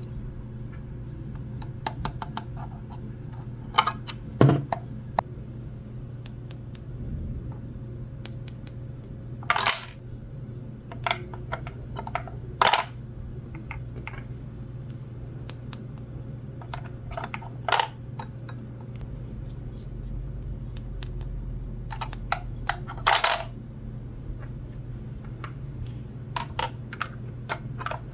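Small plastic toy pieces being handled and set down: scattered clicks and taps, a few louder clacks, over a steady low hum.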